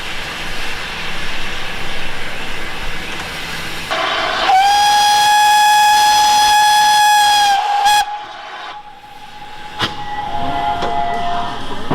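Steam locomotive whistle blown once, a steady note held for about three seconds and cut off sharply, starting about four seconds in over the hiss and running noise of the train.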